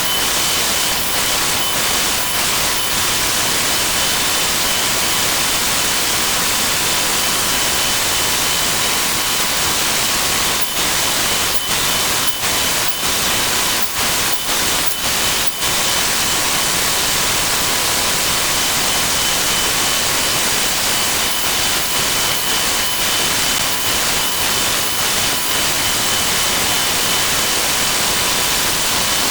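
Dense, steady hiss-like noise with faint steady tones through it and a few brief dropouts around the middle: woodworking workshop sound played back at twelve times speed, so individual tool sounds blur into a wash.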